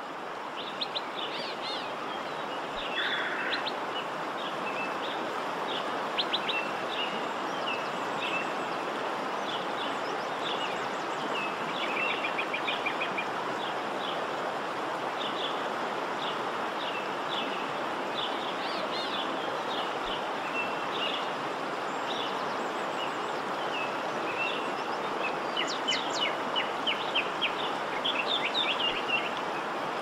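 Steady rushing of a waterfall and river rapids, with small birds chirping over it again and again, most busily near the end.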